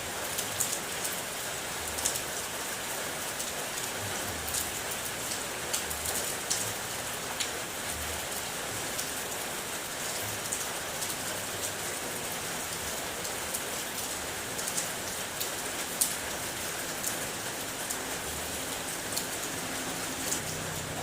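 Steady rain falling, an even hiss with scattered sharp taps of individual drops landing close by.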